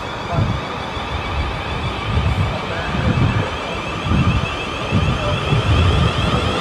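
South Western Railway Class 444 Desiro electric multiple unit drawing into the platform, with a steady electric whine over a low, uneven rumble.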